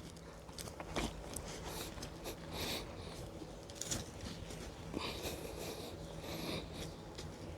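Soil being scraped and rummaged through while digging out potatoes, in short scratchy rustles with a few small knocks.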